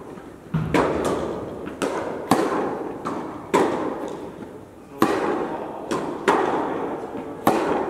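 Tennis rally on an indoor court: racket strikes and ball bounces, a sharp pop every second or so, each ringing out in a long echo through the large tennis hall.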